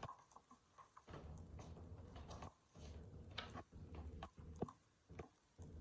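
Faint, irregular crunching and crackling of crumbly material being crushed, with scattered sharp cracks over a low rumble.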